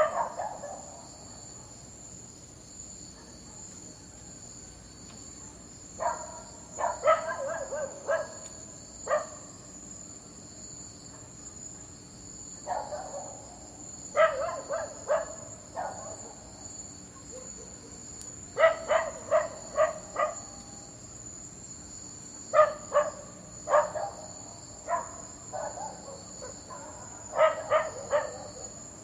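A dog barking in bouts of several quick barks, a few seconds apart, over steady background chirring of crickets.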